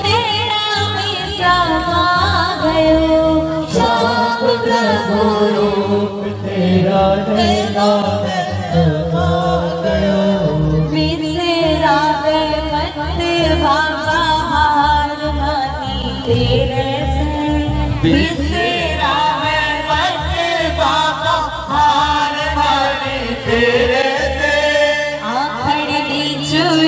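Live devotional bhajan music for Khatu Shyam: melodic singing over amplified instrumental accompaniment, running on without a break.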